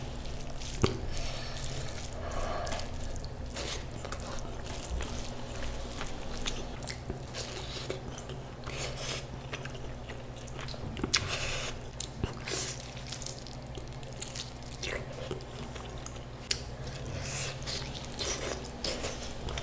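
Wet eating sounds: chewing and smacking on goat mutton, with scattered short clicks and moist smacks, the sharpest at about one second and eleven seconds in, over a steady low hum.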